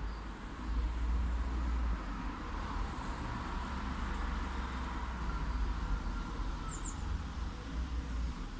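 Light city traffic, a steady low rumble of passing vehicles, with a faint short bird chirp near the end.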